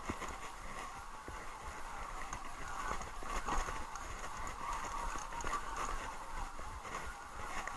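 Haibike SDURO electric mountain bike rolling fast downhill over dirt and loose gravel: steady tyre noise on the trail with many small rattles and knocks from the bike over the bumps, and low rumble of wind on the microphone.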